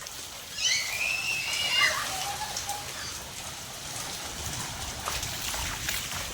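Rain falling steadily on a rooftop, an even hiss with scattered drips and splashes. A brief high-pitched squeal comes about a second in.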